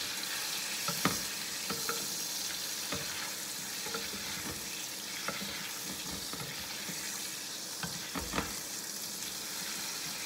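Pieces of brown trout sizzling in butter in a frying pan: a steady hiss, with a metal utensil knocking against the pan now and then, the loudest knocks about a second in and near the end.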